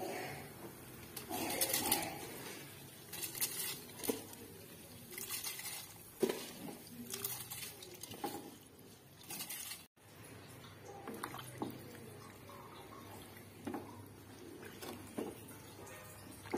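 Soaked rice poured from a steel bowl into a pressure cooker of watery bean mixture, pattering into the liquid in repeated bursts as the bowl is tipped and scraped. About ten seconds in the sound cuts, and a spatula stirs through the liquid with soft knocks against the cooker.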